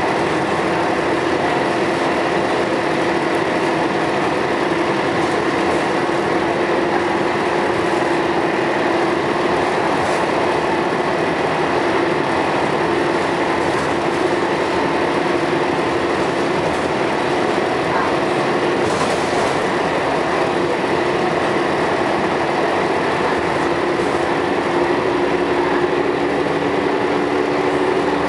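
Scania L113CRL bus's rear-mounted six-cylinder diesel engine and road noise while the bus is driving, a steady drone with a constant hum.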